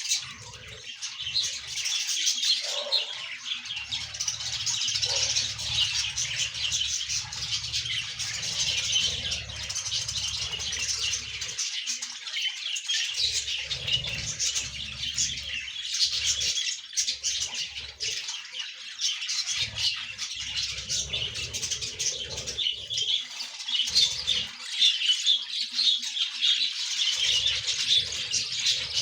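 Budgerigars chattering, many short high chirps and warbles overlapping without a break. A low rumble comes and goes underneath.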